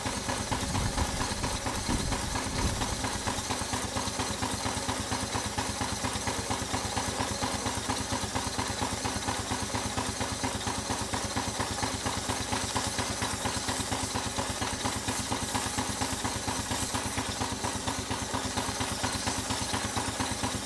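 Large live-steam model showman's traction engine running while standing still, its steam engine beating at a fast, even rhythm.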